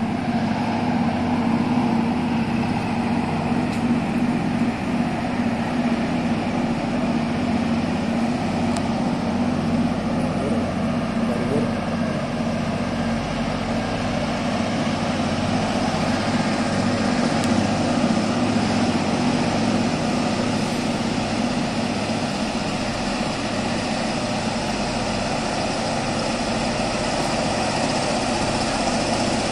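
Diesel engines of a train of EMD G22UB diesel-electric locomotives working, a steady low drone with a hum near the bottom that holds on throughout.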